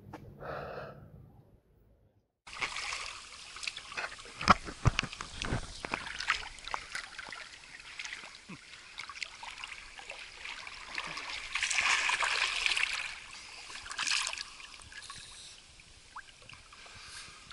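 Water splashing and trickling with irregular small splashes, starting suddenly after a brief silence about two seconds in. A louder rushing splash comes about twelve seconds in.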